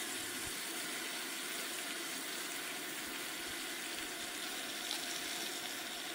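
Onions, peppers and tomatoes sizzling and simmering in a cast iron skillet on a camp stove: a steady, even hiss.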